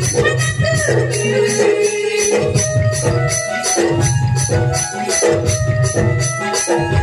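Live Sambalpuri kirtan folk music: a keyboard melody over drums, with a steady bright metallic percussion beat of about three strokes a second.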